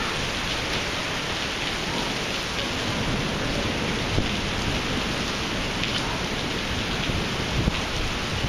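Heavy thunderstorm rain pouring steadily onto a paved parking lot and parked cars, an even hiss throughout. Low rumbling grows in the second half, with a couple of brief louder peaks.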